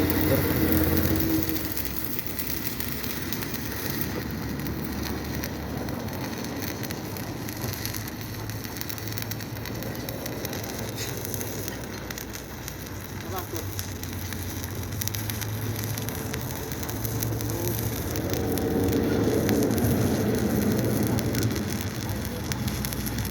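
Electric arc welding: a continuous crackling sizzle from the arc, growing louder about 18 seconds in.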